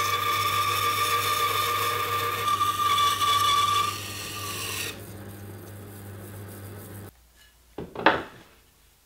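Bandsaw cutting through a hardwood table-leg blank: a steady whine with blade noise over the motor's hum, quieter from about four seconds in, then stopping abruptly about seven seconds in. About a second later come two sharp knocks of a wooden piece set down on a benchtop, the second the loudest sound here.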